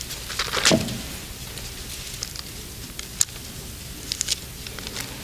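Thin Bible pages rustling as they are turned, close to the pulpit microphone, with the loudest rustle a little under a second in and a few sharp clicks and crinkles later.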